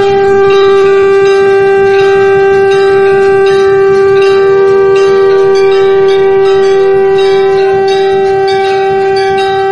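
Background flute music: a melody moving above a steady low drone note held without a break.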